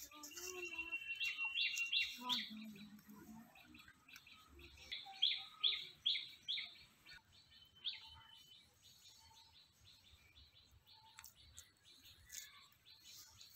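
A bird calling: two runs of short, sharp, repeated notes, about three a second, the first about a second in and the louder second run about five seconds in, each after a thin held whistle.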